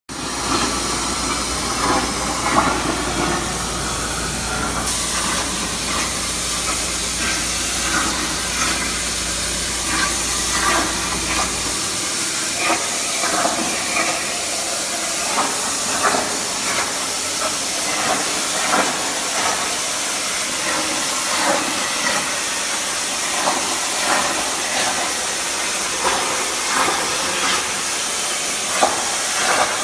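CNC plasma cutter torch cutting metal: a loud, steady hiss with scattered short crackles. A low hum underneath stops about twelve seconds in.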